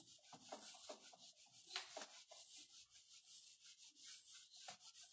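A whiteboard duster wiping across a whiteboard in faint, quick, irregular rubbing strokes, clearing it.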